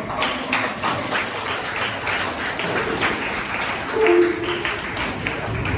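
An audience clapping and applauding, with a short two-note sound, likely a voice, rising out of it about four seconds in.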